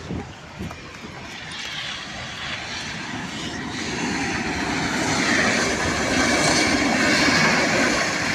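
Train approaching and running past close by: a steady rumble and rail noise that builds over several seconds and is loudest about five to seven seconds in, with a couple of short knocks at the start.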